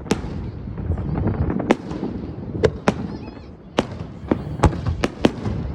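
Aerial fireworks shells bursting: about eight sharp bangs at uneven intervals, over a continuous low rumble.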